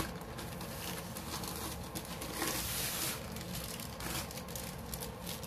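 Rustling and light handling noises as a rolled diamond painting canvas is moved about on a table, with a louder rustle about two and a half seconds in.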